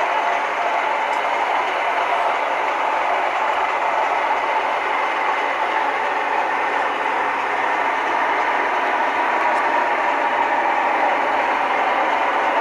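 Model diesel locomotive's DCC sound decoder playing a steady diesel engine sound through its small onboard speaker, thin and lacking any deep bass, with the model's running gear on the track mixed in.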